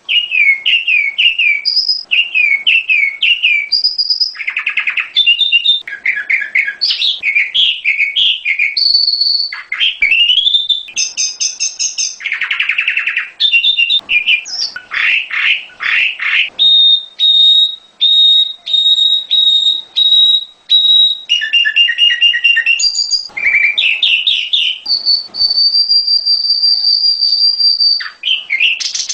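Prenjak gunung (a prinia) song played as a lure recording: fast, varied chirps, trills and sliding whistles. Midway comes a run of short, evenly repeated notes, and near the end one long held whistle.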